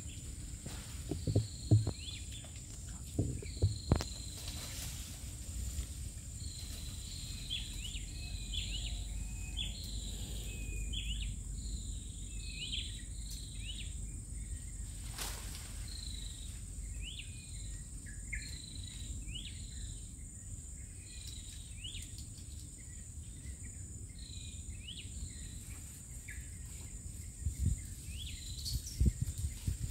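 Stream-side forest ambience: a steady high insect drone under a long series of short, falling chirping calls repeated about once a second. A few thumps come near the start and again near the end.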